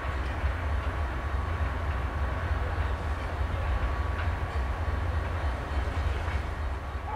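Passenger train coaches rolling slowly away over curved station switches: a steady low rumble, with a faint thin wheel squeal that fades out about halfway.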